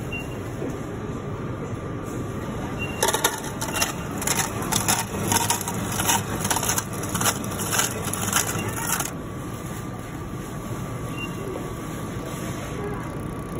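7-Eleven self-serve milkshake machine running as it makes and dispenses a shake into a paper cup: a steady hum with a faint whine, and for about six seconds in the middle a dense run of rapid crackling and crunching.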